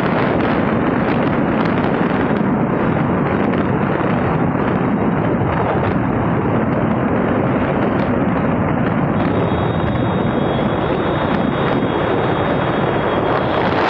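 Wind rushing over the microphone of a phone filmed from a motorcycle at speed, a steady loud noise. A faint high whine joins it about nine seconds in.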